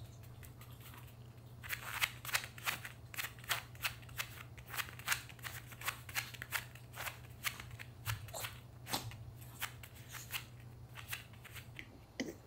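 A Pomeranian crunching dry food: a quick, irregular run of sharp crunches that starts about two seconds in.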